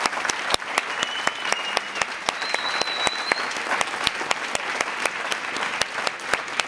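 Audience applauding, many hands clapping, with a brief high whistle about halfway through.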